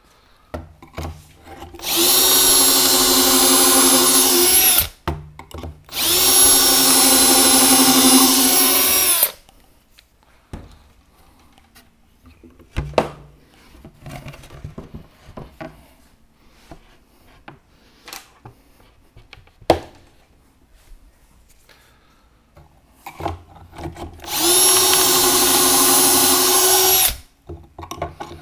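Milwaukee drill boring pocket holes into plywood through a Kreg pocket-hole jig with a stepped bit: three runs of about three seconds each at a steady motor whine. Between the runs come light clicks and knocks as the jig and workpiece are handled.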